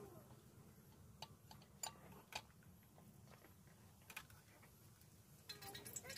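Metal ladle clinking against a metal soup pot while stirring: a few faint clicks spread out over several seconds, with a short warbling animal call near the end.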